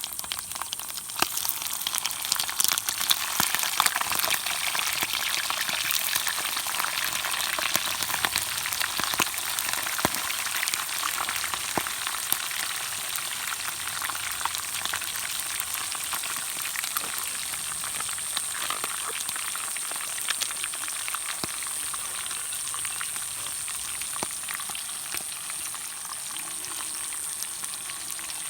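A steady crackling hiss made of many small pops and clicks, with a thin high whine held under it.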